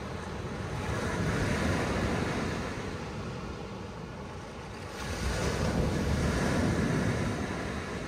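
Small ocean waves breaking and washing up a sandy beach, swelling twice, about a second in and again about five seconds in. Wind rumbles on the microphone.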